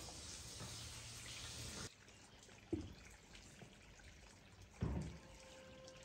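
Faint outdoor ambience, dropping suddenly to a quieter background about two seconds in, with two short soft knocks about two seconds apart.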